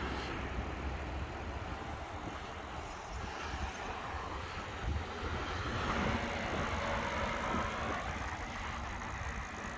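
Steady rushing of wind over the microphone and tyre noise while riding an e-bike on a paved path, with a deep rumble underneath. The rush swells slightly about six seconds in.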